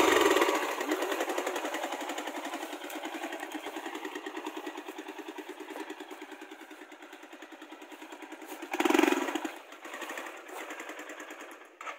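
Motorcycle engine running at low speed with an even, rapid firing beat, growing fainter as the bike rolls away. A brief louder burst comes about nine seconds in.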